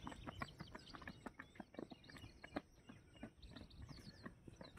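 Near silence with faint, irregular light ticks of running footsteps on bare rock, and a few faint bird chirps.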